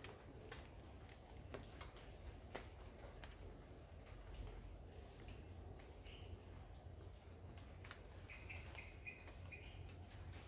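Faint garden ambience: a steady high insect drone, with short high chirps in pairs about three and a half and eight seconds in, then a quick run of lower chirps. Scattered faint ticks sound over it.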